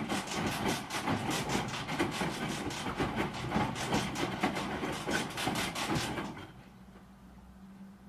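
Broken washing machine running with a rhythmic clatter of about three to four knocks a second. The clatter stops about six seconds in, leaving a faint low hum.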